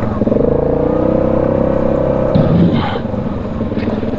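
ATV engine running under throttle as the machine moves off along the trail, its pitch rising a little, easing off about two seconds in and picking back up near the end.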